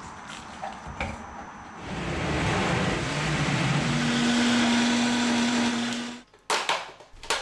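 High-speed countertop blender puréeing a fruit-and-vegetable smoothie. About two seconds in the motor jumps to full speed, and its pitch steps up near the middle. It cuts off suddenly a little after six seconds, followed by a few sharp clacks.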